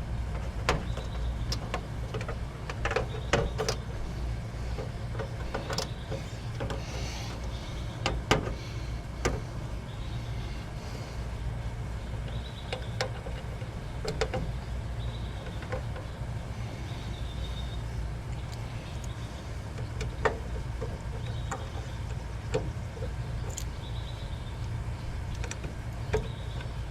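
Scattered small clicks, snaps and knocks of wire connectors and the control board being handled inside an air conditioner's control box, over a steady low rumble.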